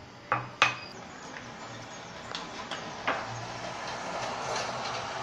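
A small metal spoon stirring cornflour-and-flour batter in a glass bowl: two sharp clinks against the glass in the first second, then scattered taps and steady scraping as the water is mixed into a paste.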